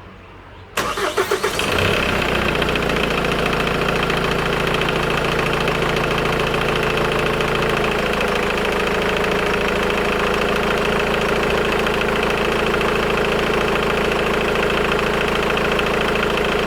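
Hyundai car engine cranking and catching about a second in, then idling steadily with a rattle from the timing chain: the chain has stretched and its tensioner has collapsed.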